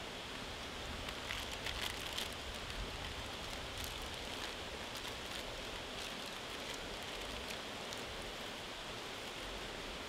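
Gas camping stove burner hissing steadily as it heats a pot of water. Over it, crackling and rustling of a packet being handled, busiest in the first couple of seconds.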